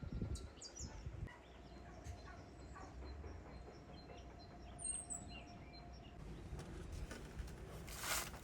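Scattered bird calls, with a few low thumps in the first second and a brief rustle near the end.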